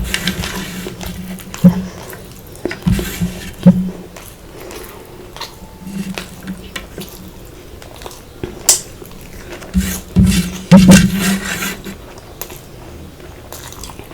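Close-up eating sounds: chewing, with scattered clinks and scrapes on a plate.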